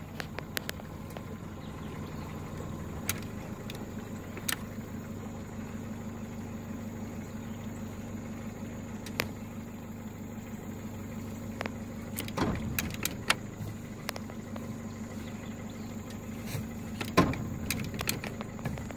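Boat motor running steadily at low speed, with a scattered handful of short knocks.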